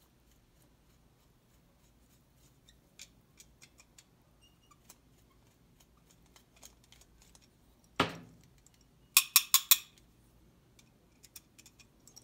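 Faint metallic clicks of a long screwdriver working inside a small-engine carburetor to free the jet. About eight seconds in comes a thump, then a quick run of about six sharp metallic taps as the carburetor is tapped to knock the jet out.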